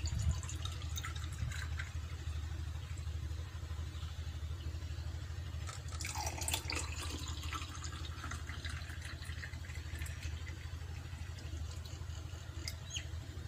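Blended rose milk poured from a blender jar into glasses, a steady trickle and splash of liquid that grows louder about six seconds in as the pour into the second glass starts. A steady low hum runs underneath.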